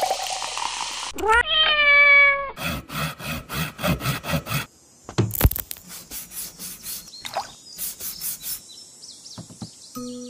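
A cat meows once, a call that rises and then holds for about a second, followed by a quick run of taps and clicks.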